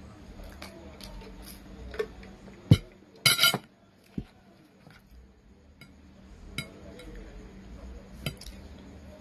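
Cutlery clinking against a plate during eating: scattered light clicks, a sharper clink nearly three seconds in and a short rattle just after it.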